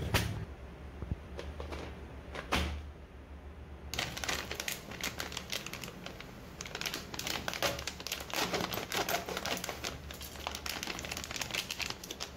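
Plastic oats packet crinkling as it is handled: a few scattered crackles at first, then dense, continuous crinkling from about four seconds in.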